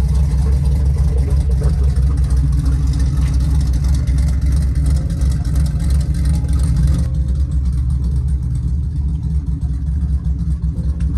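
Lifted Jeep's engine running with a loud, deep, steady rumble as it rolls slowly out of a shop bay.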